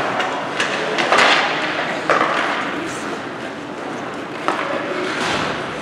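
Youth ice hockey game: skates scraping on the ice over a steady rink din, with several sharp knocks of sticks and puck.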